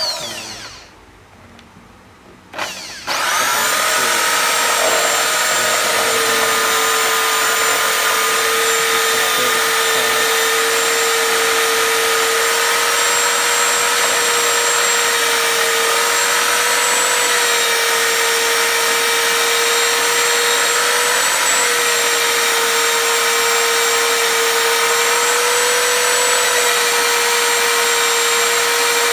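Corded electric drill clamped in a wooden stand, winding down at the start, then switched on again about three seconds in and running steadily with a grey abrasive polishing wheel in its chuck. A rusty claw hammer head is held against the spinning wheel to scrub off the rust, and the drill's whine dips slightly in pitch now and then.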